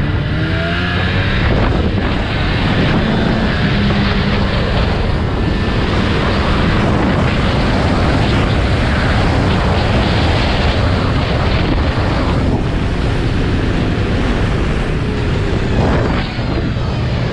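Snowmobile engine running steadily at trail speed, heard from on board the sled, with a brief dip in loudness about a second before the end.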